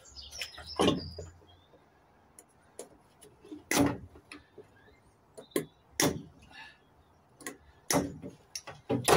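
Pliers clicking and knocking against the metal parts of a gas boiler being taken apart: scattered single knocks with quiet between, four of them louder and a couple of seconds apart.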